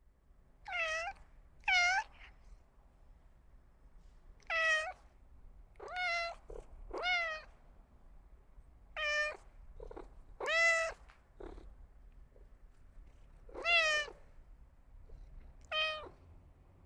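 Domestic cat meowing repeatedly: about nine short calls, each under half a second, spaced a second or two apart.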